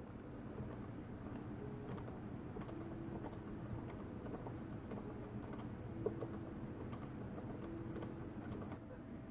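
Small metallic clicks and ticks from a model four-stroke engine's gearless exhaust-valve gear, a pawl-driven ratchet wheel working the valve pushrod, as the engine is turned over slowly. The clicks come at irregular intervals over a low steady hum, with one sharper click about six seconds in.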